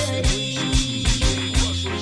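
Reggae dancehall riddim playing without vocals: a heavy, steady bass line under a regular drum beat.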